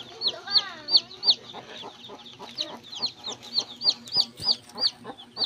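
Native chicken chicks peeping: a quick run of short, high, falling peeps, about three a second, with a short pause near the middle, over a hen's low clucking.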